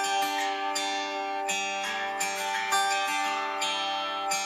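Background music: an instrumental tune on plucked strings, with notes struck every fraction of a second and each one fading away.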